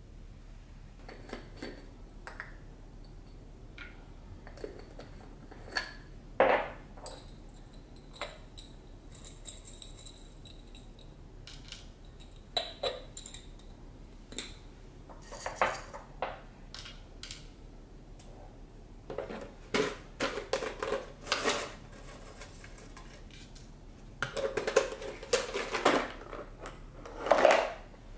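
Spice jars being handled and opened on a stone countertop: scattered clicks, knocks and short rattles as whole spices are shaken out of the jars and dropped onto a wooden plate, busiest in the second half.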